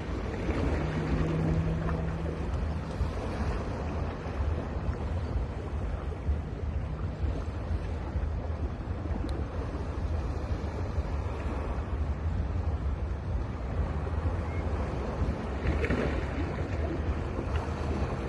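Sea waves breaking and washing onto a beach: a continuous rushing surf with a deep low rumble and a faint steady low hum beneath it.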